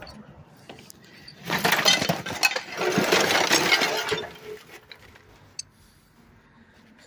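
A load of broken drywall and tile demolition debris is tipped out of a wheelbarrow onto a pile. The pieces clatter and crash down together starting about a second and a half in, for roughly two and a half seconds, then settle with a few small clicks.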